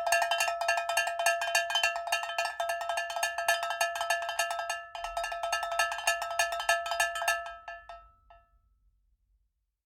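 A metallic, bell-like tone struck rapidly and repeatedly, with a short break about five seconds in, stopping and dying away about eight seconds in.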